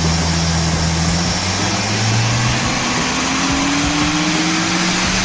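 A car engine running under loud rushing noise, its note rising steadily through most of the stretch as it picks up revs.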